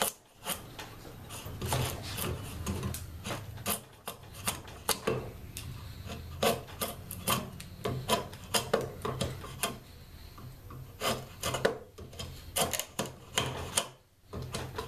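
Draw knife shaving a wooden 2x4 clamped in a bench vise, a long run of short, irregular scraping strokes as the blade is pulled along the wood, with a brief pause near the end.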